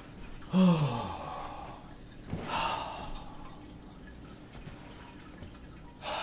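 A man's long, weary sigh of relief, his voice falling in pitch, followed by a soft knock and a breathy exhale about two seconds later and another exhale near the end.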